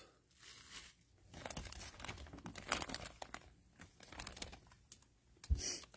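Clear plastic bag crinkling faintly and irregularly as the football sealed inside is handled and turned, with a short thump near the end.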